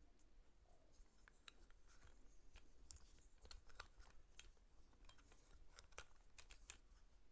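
Faint handling noise from a plastic chest mount being fitted onto its harness strap: many small irregular clicks and ticks with light scraping between them.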